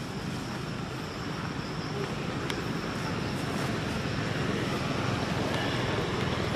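Outdoor ambience: a steady low rumble that grows slowly louder, with a thin, steady high insect drone above it.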